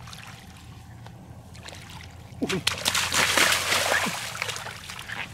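Shallow floodwater splashing hard for about two seconds, starting a little over two seconds in, as a fish is lunged at and grabbed by hand.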